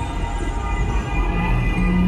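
Dark-ride soundtrack: music over a steady low rumble, with a low held note coming in near the end.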